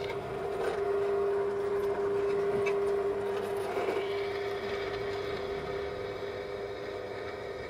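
A small motor running with a steady hum, with rasping, scraping noise along with it; the hum is strongest in the first half and eases off after about four seconds.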